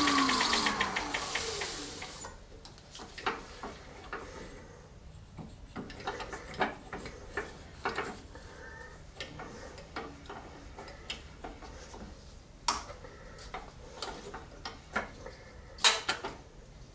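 Wood lathe spinning down, its hum falling in pitch and fading over the first two seconds while a hand slows the turned resin-and-wood orb. Then scattered small clicks and knocks as the hand handles the stopped piece on the lathe, with a sharper knock near the end.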